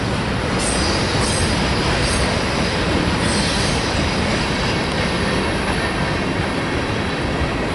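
Freight train rolling steadily past at close range: a continuous noise of wheels on rail and cars passing.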